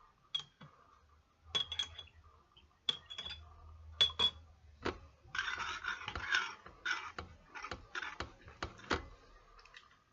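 Irregular sharp clicks and clinks of a spoon against a plate as the slime is handled, with a brief rustling scrape about halfway through.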